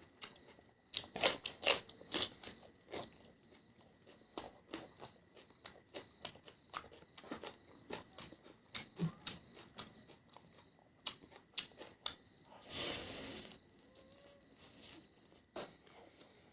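Close-miked eating: chewing and biting with many short, sharp crunchy clicks, and one longer noisy sound lasting about a second near the end.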